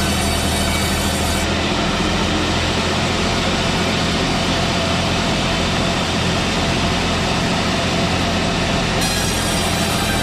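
Old manual sawmill running steadily while sawing pine: a loud, continuous mechanical drone with an engine hum underneath.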